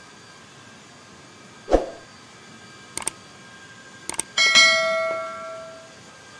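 Subscribe-button animation sound effect: a short pop, two quick double mouse clicks, then a bell ding that rings out and fades over about a second and a half.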